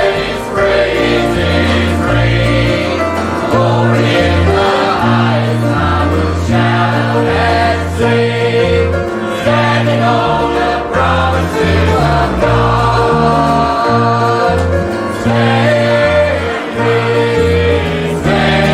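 A choir singing a gospel hymn, accompanied by instruments with a walking bass line.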